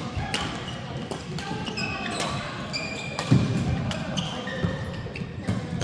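Badminton doubles rally in an echoing hall: sharp racket strikes, shoes squeaking on the court floor, and a heavy thump of a landing foot about three seconds in.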